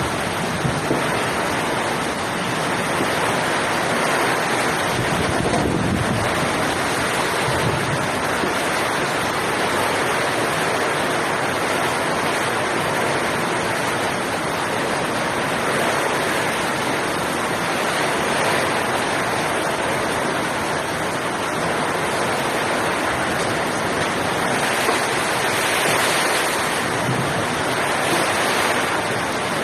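Heavy typhoon rain pouring down, a steady, dense rushing noise with no letup.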